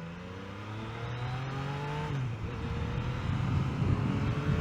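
Yamaha XSR900's inline-three engine accelerating under way, its pitch climbing, dropping abruptly at a gear change about two seconds in, then climbing again more slowly.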